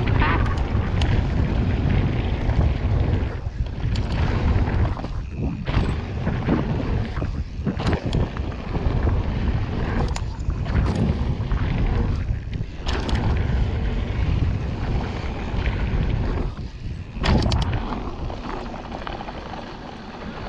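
Heavy wind rumble on the camera microphone while riding a mountain bike down a trail, with the rattle and sharp knocks of the bike over rough ground.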